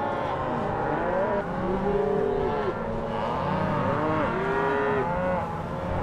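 Many cows bawling at once, long overlapping moos from all sides: cows calling for calves they have not yet found after being pushed together.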